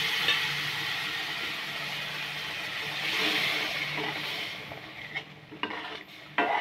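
Boiled pigeon pea dal poured into a hot pan of fried masala, sizzling steadily while it is stirred in; the sizzle dies down after about four and a half seconds, and a metal spatula clicks against the pan a few times near the end.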